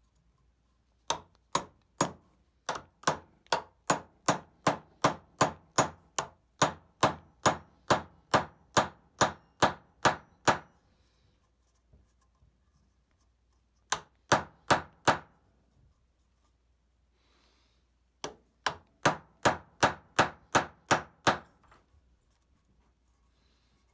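Hammer tapping a wide oak wedge into the slotted top of a hickory handle to lock a cross peen hammer head on it: a long run of sharp, steady taps, about three a second, then a quick burst of about six, then about nine more.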